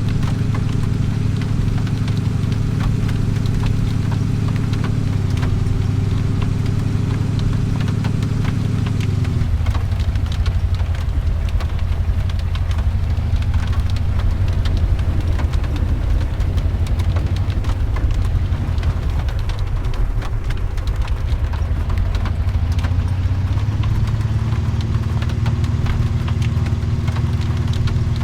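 A car engine running steadily with road noise. Its pitch drops about nine seconds in and climbs back near the end, with a fine crackle of patter over it.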